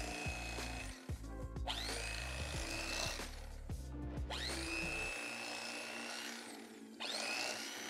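Electric carving knife motor running in several short bursts as it saws through smoked turkey breast. Each burst starts with a rising whine and then holds a steady high whine. Background music plays underneath.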